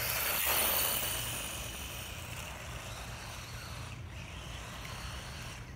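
A 1/16-scale RC buggy with a 3300KV brushless motor driving fast over loose fine gravel: motor and drivetrain whine with tyres spraying grit. It is loudest about half a second in, then fades as the car drives away.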